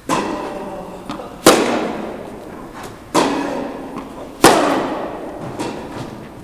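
Tennis rally: a ball struck back and forth with rackets, four sharp hits about a second and a half apart, the loudest two about a second and a half in and near three quarters through, with lighter ball bounces between. Each shot echoes around the large indoor tennis hall.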